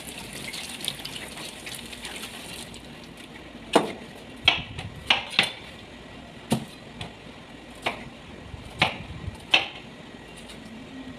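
Tap water running briefly as a bitter gourd is rinsed at the sink, then a kitchen knife cutting the bitter gourd on a cutting board: about eight sharp chops, irregularly spaced.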